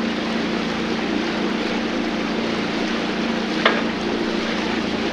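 Boat motor running with a steady hum over a constant rushing noise, with one short sharp click about three and a half seconds in.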